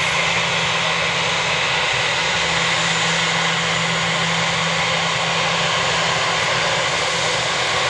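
Airbus A320-family airliner's jet engines running at low taxi thrust as it rolls slowly past: a steady loud rush with a constant high whine and a low hum.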